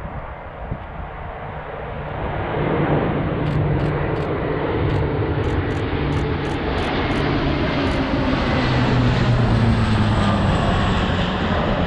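Three C-130 Hercules four-engine turboprop transport aircraft flying low overhead in formation. Their engine and propeller drone swells about two seconds in and stays loud, and its hum slides down in pitch as they pass.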